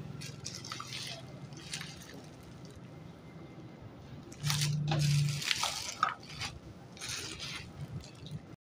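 Plastic wrap around a stack of paper air fryer liners crinkling as it is handled, in irregular bursts that are loudest about halfway through, then cutting off suddenly near the end.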